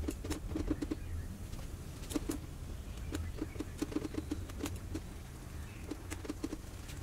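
Vegetables blanching in a small pot of boiling water on a gas burner: a steady low rumble with clusters of small pops and clicks as the utensil stirs them.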